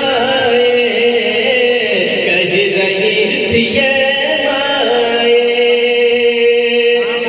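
A man singing a naat, an Urdu devotional poem, solo into a microphone, drawing out long held notes that waver and bend slowly, with one note held for about two seconds near the end.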